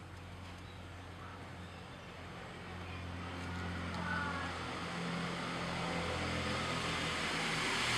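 A motor vehicle's engine running with a low steady hum, growing steadily louder as it draws closer.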